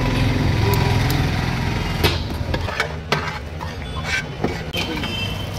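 Steady low engine hum with street noise, easing after about two seconds. A few sharp metal clanks of a cook's ladle against a large steel wok on the gas burner come in the second half.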